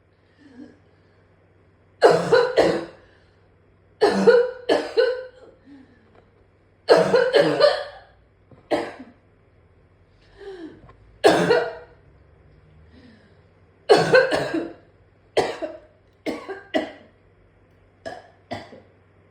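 A person in a bad coughing fit: harsh coughs in clusters of two or three, coming again and again every second or two.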